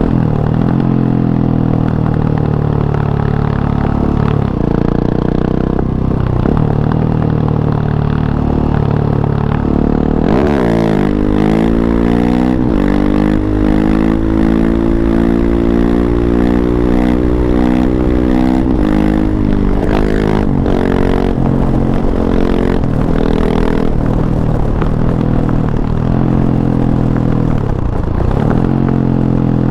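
KTM 690 SMC-R's single-cylinder engine running loud through an Arrow Race-Tech exhaust with the dB killer fitted. Its pitch rises and falls throughout. About ten seconds in the revs drop sharply, then climb and hold high for several seconds before falling away, with more short drops near the end.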